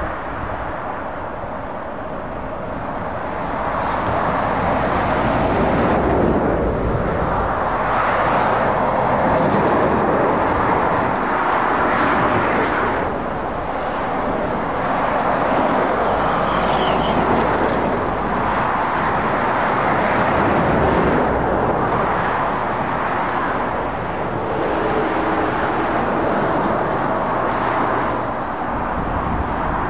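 Road traffic on a dual carriageway: heavy goods lorries and cars passing, their tyre noise and diesel engines rising and falling every few seconds as each vehicle goes by.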